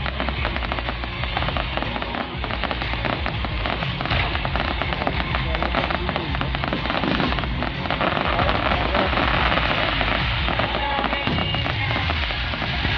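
Fireworks bursting and crackling in a dense, continuous barrage, with music playing along.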